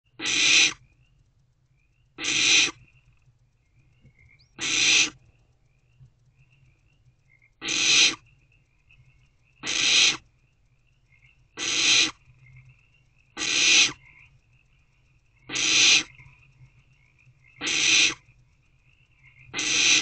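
Barn owlets giving their rasping hiss-screech, the food-begging call of young barn owls, about every two seconds. Ten calls, each about half a second long.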